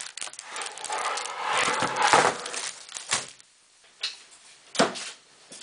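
Clear plastic sheet crinkling as a plastic soap mold is handled and set down on it, loudest about two seconds in, followed by three short knocks.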